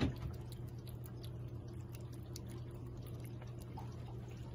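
Orange tabby cat licking paste treat from a squeezed CIAO tube: quick, irregular wet lapping clicks, over a steady low hum.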